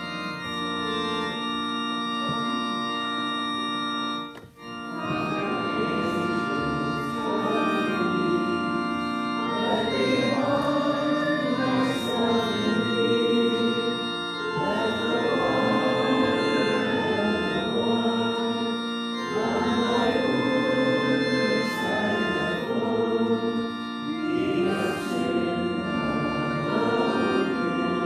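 Church pipe organ playing a hymn, breaking off briefly about four seconds in. A few voices sing along from about five seconds in.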